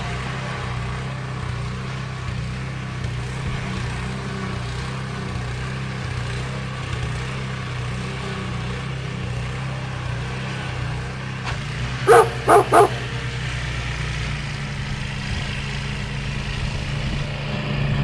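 A dog barks three times in quick succession about twelve seconds in, over the steady hum of small snowblower engines running.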